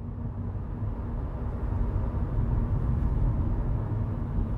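Low, steady vehicle rumble with a faint steady hum, growing louder over the first couple of seconds.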